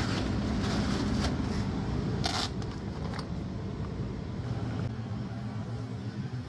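Air-conditioning system running with a steady low hum, with a few brief rustles and clicks of hands working on the unit, the loudest about two and a half seconds in.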